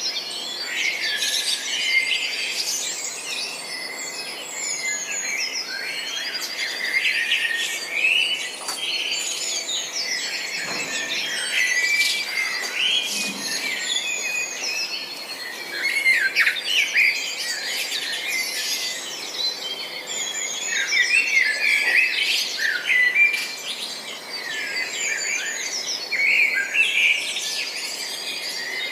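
A chorus of many small songbirds chirping and trilling at once, their quick calls overlapping without a break.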